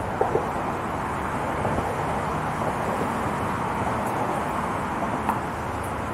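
Steady hum of car traffic on the bridge roadway beneath the pedestrian walkway, with two short sharp sounds just after the start.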